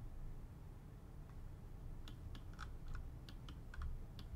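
Scattered clicking of a computer keyboard and mouse, about a dozen irregular taps, most of them in the second half, over a low steady background hum.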